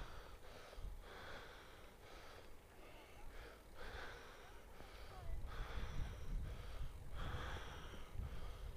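A cyclist breathing close to the microphone while riding, one short puff every half second to a second. A low wind rumble on the microphone grows stronger in the second half.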